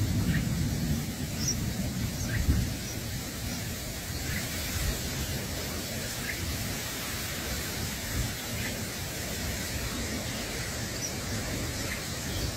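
Faint, short chirps of red-whiskered bulbuls at the nest, every second or two, over a steady hiss, with a low rumble in the first couple of seconds.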